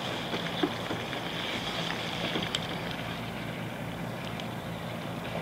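Steady low hum of a boat's diesel engine running nearby, over an even background hiss.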